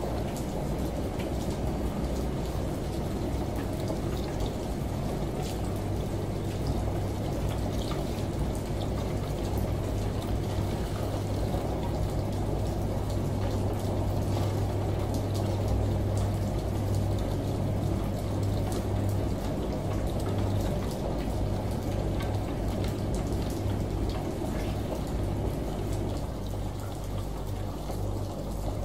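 Ambient mix of a washing machine, shower water and rain: a steady rush of running water over a low hum, with faint scattered drips. The hum turns uneven about twenty seconds in.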